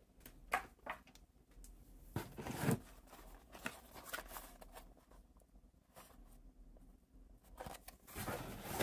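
Car parts being unpacked by hand: scattered rustling and tearing of packaging with light knocks. The loudest bursts of rustling come about two seconds in and again near the end.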